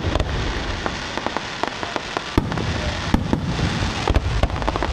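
Aerial fireworks display: shells bursting with a dense, continuous crackle of many sharp bangs, and a few heavier booms from about halfway on.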